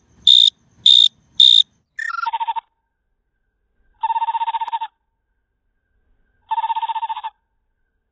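Field cricket chirping. First come a few short, high chirps at normal speed. About two seconds in, the pitch glides down as iPhone slow motion takes over, and the chirps become low, drawn-out pulsing trills a couple of seconds apart.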